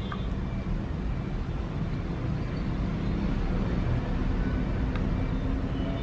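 Steady low background rumble, even and unbroken, like distant traffic or a room's ventilation.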